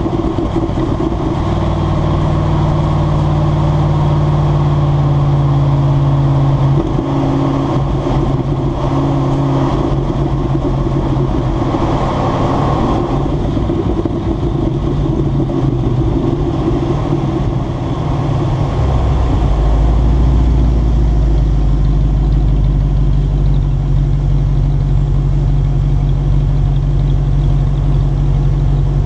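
Exhaust of a 1995 Ford F-150's 302 V8, fitted with an exhaust cutout, running as the truck drives along. The engine note changes pitch a few times and settles into a lower, steady drone about two-thirds of the way through, over road and wind noise.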